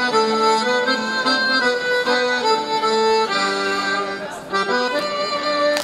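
Accordion playing a lively traditional folk dance tune in held, sustained melody notes, with a short break in the tune about four and a half seconds in.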